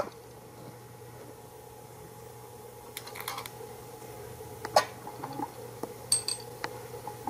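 Small plasma flame arc on a Collins transmitter's electrode, working as a flame speaker: a steady hum with irregular sharp crackles and clicks, the loudest a little before five seconds in.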